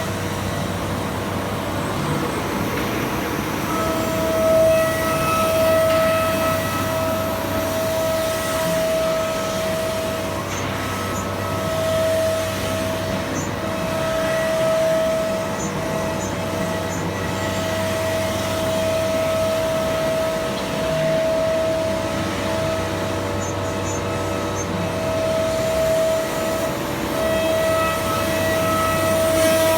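CNC router spindle running with a steady high whine over a low hum, the whine starting about four seconds in and dipping briefly every second or two.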